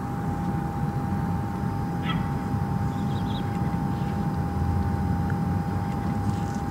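Steady low outdoor rumble with a constant thin hum above it, and a few faint chirps about two and three seconds in.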